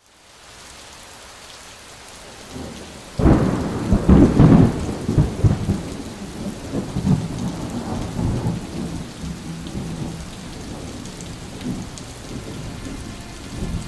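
Steady rain, then a loud thunderclap about three seconds in, rumbling on in several swells and fading away over the next several seconds.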